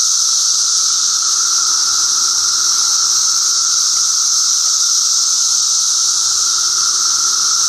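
A dense chorus of Brood XIII seventeen-year periodical cicadas singing from the trees: a loud, steady, shrill drone with a lower hum beneath it, unbroken throughout.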